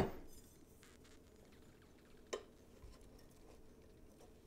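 Mostly quiet, with a few faint light taps and one sharper metallic click a little past halfway, as a steel plane blade is set down and positioned against a steel ruler on a diamond sharpening plate.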